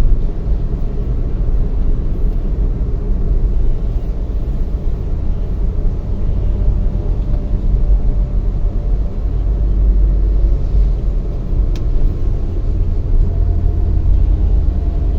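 Steady low rumble of a motor vehicle on the move, unbroken throughout.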